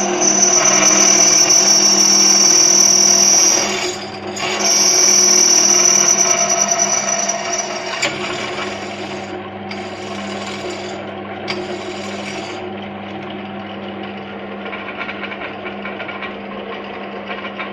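Bench drill press (EURO CRAFT DP 201, 1550 W) running with a steady motor hum while a blunt twist bit cuts into a steel piece. A loud high squeal comes from the bit in the metal for the first seven seconds, broken briefly about four seconds in. The drilling then goes on more quietly.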